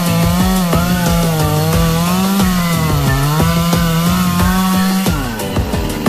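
Chainsaw at full throttle cutting through a Melaleuca trunk, its engine pitch sagging and recovering as the chain bites into the wood. About five seconds in the pitch drops sharply as the throttle is let off.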